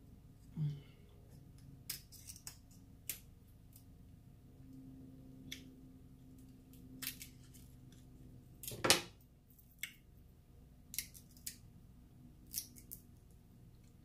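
King crab leg shell being cracked and cut open: a series of short, sharp cracks at irregular intervals, the loudest and longest about nine seconds in.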